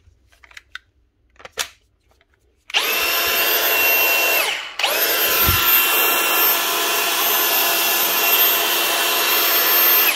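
Milwaukee M18 brushless angle grinder, its failed bottom rotor bearing replaced with a new 605 bearing, running free without a disc with a steady high whine. It runs for about two seconds, starts to spin down, and is run up again for about five seconds before switching off.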